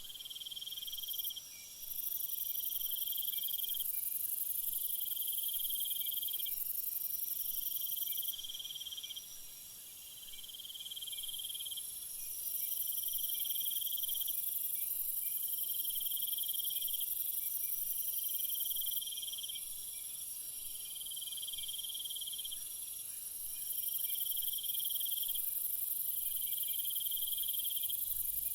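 Night insects chorusing: a high, continuous trill that drops back twice and swells again, over rhythmic chirped calls about a second long, repeating every second and a half or so.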